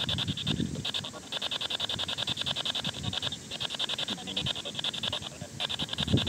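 P-SB7T Spirit Box sweeping through FM radio stations, giving a rapid, choppy stutter of static and broken radio fragments. The ghost hunters read one snatch as the Czech word "mnoho" ("many").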